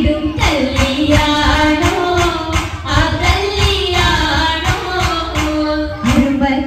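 Oppana song: high female or child voices singing a wavering Mappila-style melody over a steady percussive beat.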